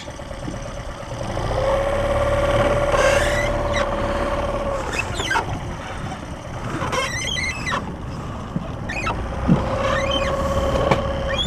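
Boat motor running with a low rumble, its steady whine rising in about a second and a half in, stopping near five seconds, and coming back briefly near the end.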